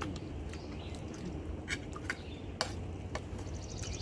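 Mukbang eating sounds: scattered short clicks of chewing and lip smacks, over a low steady hum.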